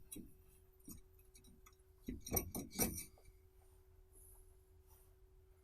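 Metal parts and tools clinking and knocking against each other while a brake disc is refitted: a couple of light knocks, then a cluster of ringing metallic clinks about two to three seconds in.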